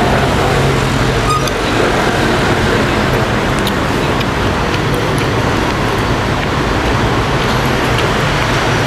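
Steady road traffic noise, the running engines of passing vehicles, with a few faint clinks of a spoon and fork against a soup bowl.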